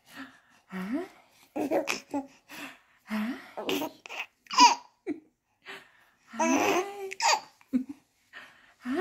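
A baby laughing and squealing in short bursts, with babbling in between; the longest run of laughter comes about two-thirds of the way through.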